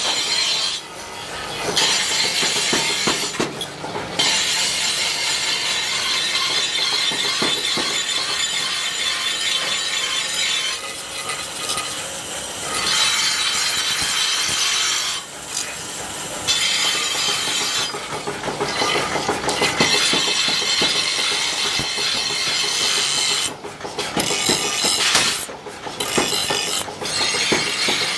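Bench grinder wheel grinding a steel cleaver blade: a loud, steady high-pitched grind that dips briefly several times as the blade is eased off and pressed back onto the wheel.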